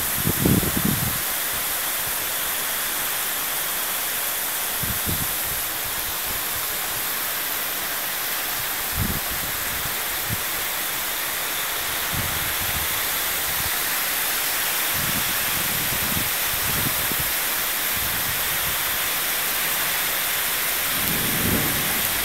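Torrential rain from a cloudburst pouring down in a dense, steady hiss, with brief low rumbles every few seconds.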